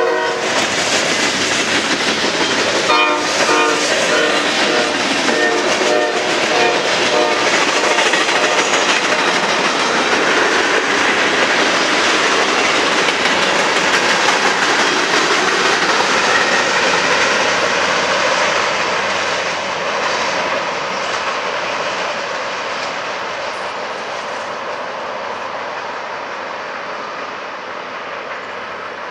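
Norfolk Southern mixed freight train passing close by: the locomotive's air horn sounds a string of short blasts about three seconds in, over the steady rumble and clatter of freight cars rolling over the rails, which slowly fades away over the last third.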